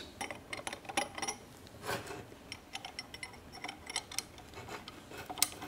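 Light metallic clicks and rubbing of steel gears and a brass synchronizer ring being turned and seated on a T5 five-speed transmission's main shaft, the ring's slots catching on the synchronizer keys.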